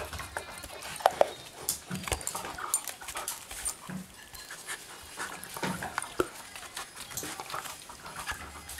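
A dog panting while it licks and gnaws at a food-stuffed rubber Kong toy, with irregular clicks, scrapes and a few knocks as the toy shifts about on a foam floor mat.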